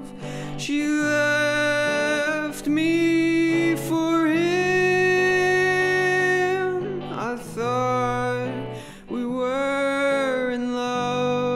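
Band music: a male voice sings long held notes, phrase by phrase, over electric guitar chords.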